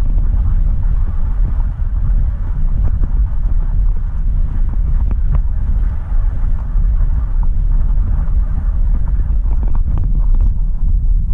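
A vehicle driving on the road: steady low rumble of engine and tyres with wind noise, and a few faint clicks.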